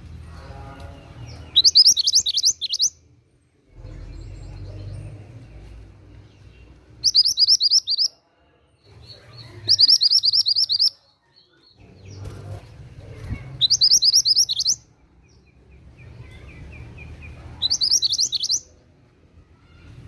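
Mantenan gunung (mountain mantenan) songbird singing: five short, high-pitched phrases of rapid chirping notes, each about a second long, a few seconds apart, over a faint low background rumble.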